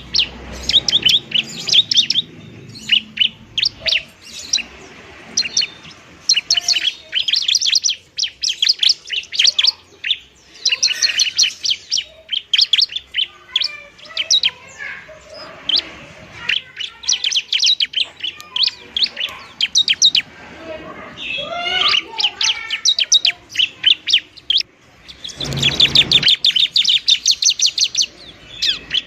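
Bar-winged prinia (ciblek) calling in rapid, dry chattering runs of many short notes a second, repeated with brief pauses between runs.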